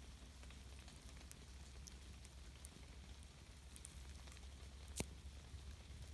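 Faint rain-and-fire ambience: a steady soft hiss with scattered sharp pops and ticks, the loudest pop about five seconds in.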